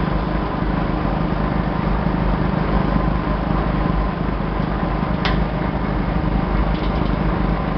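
Plastic agglomerator running: a steady motor hum and the rush of material whirled around the drum by the spinning blade rotor. A single short tick sounds about five seconds in.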